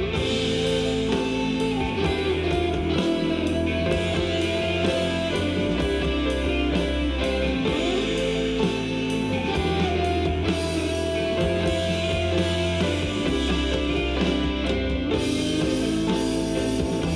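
Instrumental stretch of a rock song, electric guitars and a drum kit with a steady cymbal beat over bass, played back through JBL LSR305 studio monitors.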